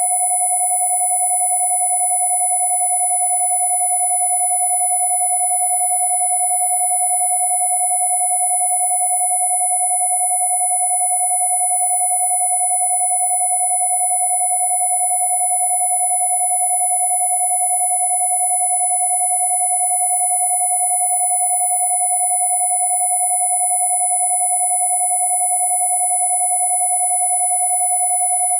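Two steady electronic pure tones sounding together without change, one at 727 Hz and a high one at 10,000 Hz, with faint overtones of the lower tone: a Rife-frequency tone session.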